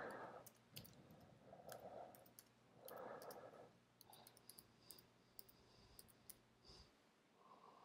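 Faint computer keyboard typing: scattered, irregular keystroke clicks as a short word label is typed.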